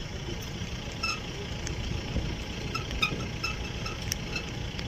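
Engines of a column of small motorcycles running along a road: a steady low rumble. Short high-pitched beeps repeat several times between about one and four seconds in.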